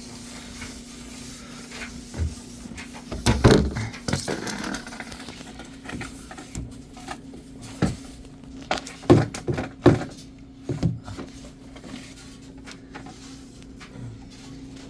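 Irregular knocks and scraping from handling a long PVC pipe, loudest in a cluster about three and a half seconds in and again in several sharp knocks later on, over a steady low hum.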